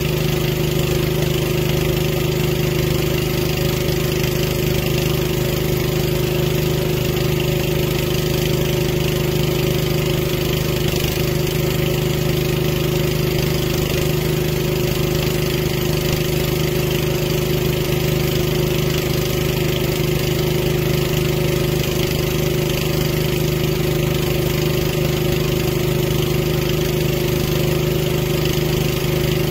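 Small engine running steadily at a constant speed, with no change in pitch or load.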